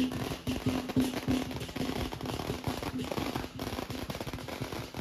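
Lion dance percussion: a large Chinese drum beaten in quick, repeated strokes with clashing cymbals, over a steady ringing tone.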